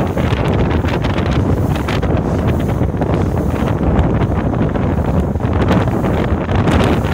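Wind buffeting the microphone aboard a moving boat: a steady low noise with no breaks.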